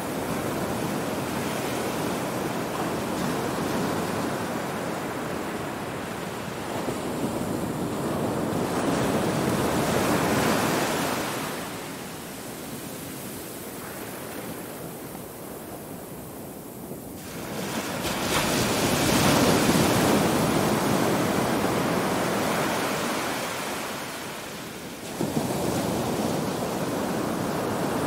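Small ocean waves breaking and washing up a sandy beach, the surf swelling and easing in slow surges. It is loudest about a third of the way in and again past the middle, and rises suddenly near the end as another wave breaks.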